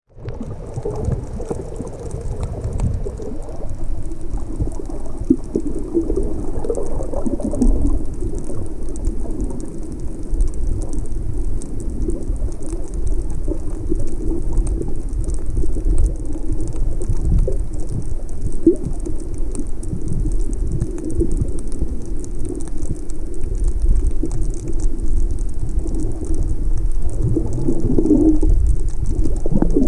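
Underwater water noise heard through a submerged camera: a low, muffled rumbling and sloshing, with a fine steady crackle high above it.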